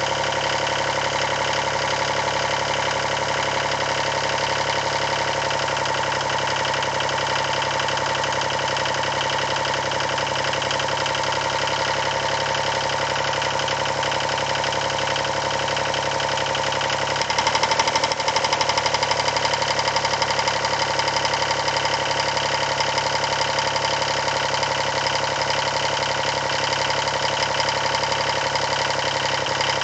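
Yanmar 336D tractor diesel engine running steadily at idle. A bit past halfway it speeds up slightly and gets a little louder.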